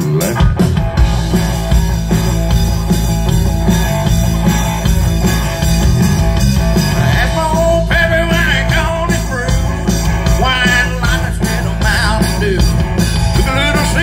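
Live rock band playing through the stage speakers, with electric guitars, bass and drums kicking in together at the start and a wavering lead melody coming in about halfway through.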